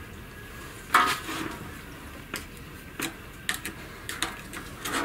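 Metal hand tools clinking and tapping against the engine casing and the metal workbench: one sharper knock about a second in, then scattered light clicks.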